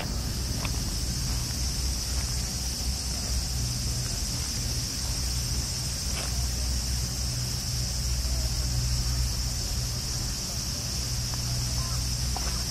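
Steady, unbroken high-pitched insect chirring over a low rumble.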